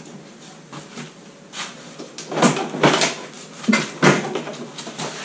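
Plastic front-end body panel of a Renault Captur clunking and knocking as it is pulled and worked loose, about five sharp knocks at uneven spacing from about a second and a half in. It stays put because a fixing is still holding it.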